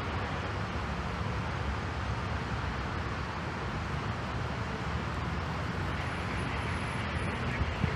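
Jet airliner taking off, its engines giving a steady, even roar at takeoff power.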